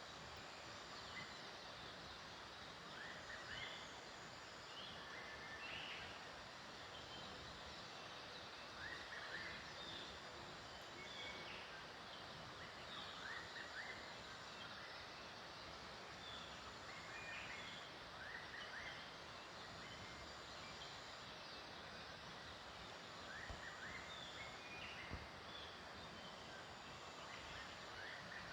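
Faint outdoor nature ambience: a steady background hiss with short chirps scattered through it and a thin high tone that comes and goes every couple of seconds.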